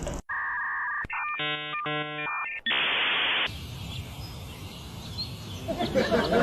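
Electronic tones: a steady two-note tone, then a run of buzzy beeps, then a short burst of hiss about three seconds in. After that comes a noisy background, with faint busy sounds near the end.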